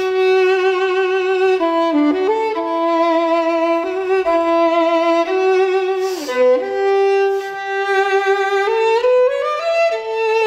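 Solo violin playing a slow melody of long held notes with vibrato, with a downward slide and rise between notes about six seconds in.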